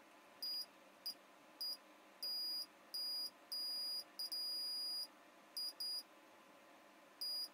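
Multimeter in continuity mode beeping as its probes touch the pads of the tiny filters near a Nintendo Switch's P13USB chip: about a dozen high-pitched beeps in an irregular run, some brief, some held most of a second. Each beep means the two pads touched are connected.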